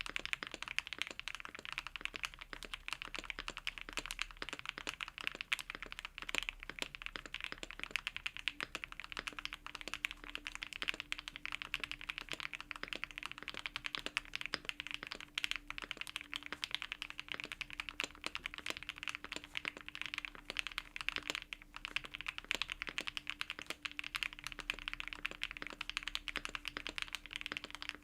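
Continuous fast typing on a Transition Lite custom mechanical keyboard with HMX Blue Topaz linear switches: a dense stream of key clacks, with a brief pause about three quarters of the way through.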